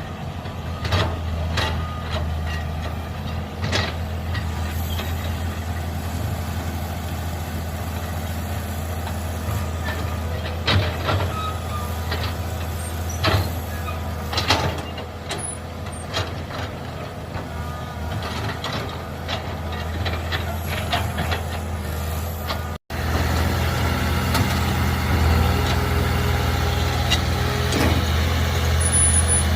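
Mini excavator's engine running steadily while digging, with scattered sharp knocks and clanks. After a brief break about three-quarters of the way through, the engine is louder.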